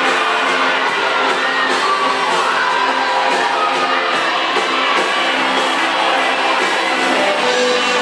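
Live band music with guitar and singing, filling a large hall, with whoops from the crowd.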